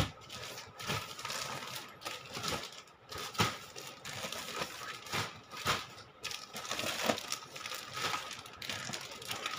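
Clear plastic garment packs crinkling and rustling as they are handled and shifted, with irregular sharp crackles and taps.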